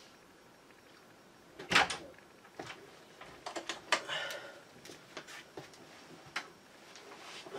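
A door opening with a sharp knock, followed by scattered clicks, knocks and rustling as someone comes in and handles a bag and gear.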